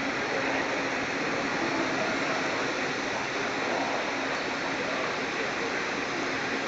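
Anderson Maxxis 5-axis CNC router running, its spindle head working around a tall block: a steady rushing noise with a faint steady hum underneath.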